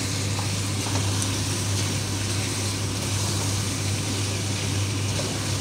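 Chicken stew sizzling in a pot as it is stirred, with a few faint spoon ticks in the first second or so, over a steady low hum.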